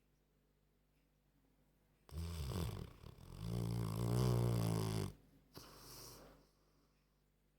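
Old Staffordshire terrier snoring, a snore like a human's: after a quiet spell, a loud, deep snore starts about two seconds in and swells into a long one of about three seconds, then a shorter, fainter breath follows.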